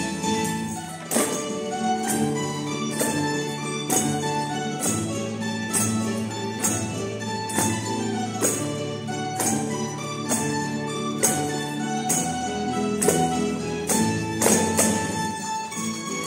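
A live plucked-string folk band with guitars plays a traditional Valencian dance tune. A sharp percussive beat is struck about once a second.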